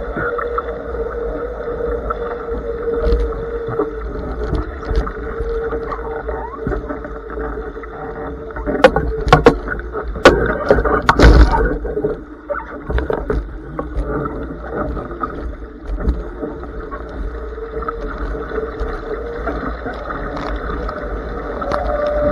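Water rushing and splashing past the hull of a Blaze sailing dinghy driven hard in strong wind, with wind on the microphone and a steady hum. About nine seconds in comes a burst of loud knocks and splashes lasting a couple of seconds, as the boat gybes and the sailor crosses to the other side.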